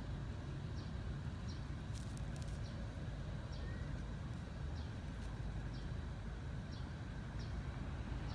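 Outdoor background: a steady low rumble, with a short high chirp repeating about once a second and a few faint sharp clicks about two seconds in.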